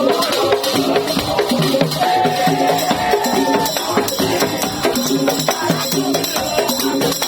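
Madurese tong-tong (daul) percussion ensemble playing loudly: a dense, driving rhythm of drums, wooden percussion and shakers under a pitched melody line.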